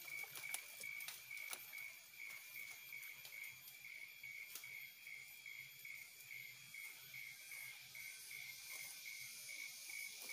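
Insects chirping in the background: a faint, high, evenly pulsed chirp running steadily, with a softer hiss swelling and fading toward the end. There are a few faint sharp clicks, the clearest about half a second in.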